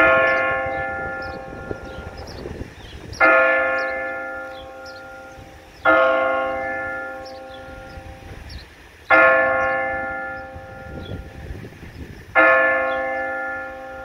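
Church bell tolling, with five slow strikes about three seconds apart, each ringing out and fading before the next. It is played through horn loudspeakers on the church's cupola, an electronic carillon rather than a swung bell.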